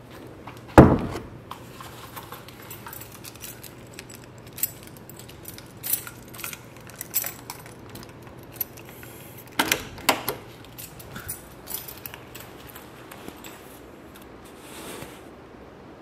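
Keys jangling and clicking in the hand. There is a loud thump about a second in and two sharp knocks a little under ten seconds in.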